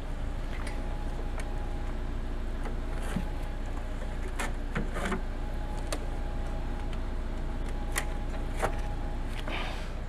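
Vehicle engine idling with a steady hum, under short scattered rubs and clicks of a rope being pulled tight and knotted as a load is tied down on the back of a ute.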